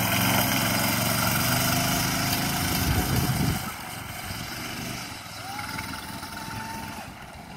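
Small gasoline engine of a go-kart running close by. About three and a half seconds in it drops suddenly to a fainter, distant running as the kart moves off.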